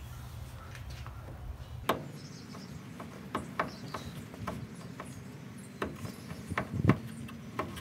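Scattered small clicks and soft knocks as a rubber hood seal is pressed by hand into its metal track on a 1962 VW Beetle, over a low steady hum. The loudest knock comes near the end.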